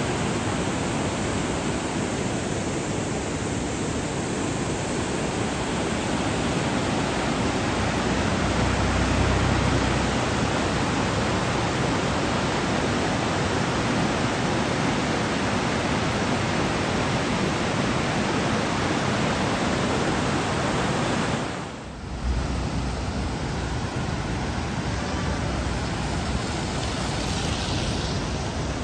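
Flooded hill stream in spate, its churning muddy water making a steady, even rushing. The sound drops away briefly about three quarters of the way through, then returns.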